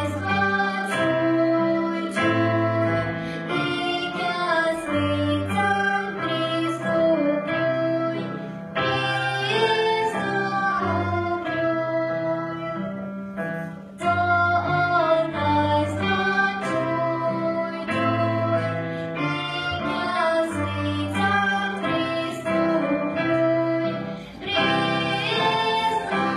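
A children's ensemble of recorders playing a melody in unison over a backing accompaniment with a repeating bass line.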